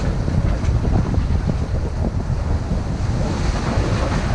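Wind buffeting the microphone in a steady low rumble, over waves washing against the granite jetty rocks.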